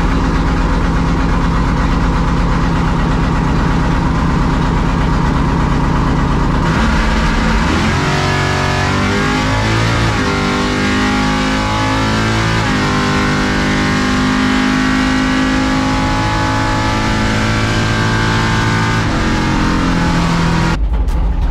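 A 700-horsepower drag-racing pickup's engine heard from inside the cab, running loud through a test pass. Its pitch is steady at first; from about seven seconds in it glides and shifts for several seconds, then settles again before dropping away near the end.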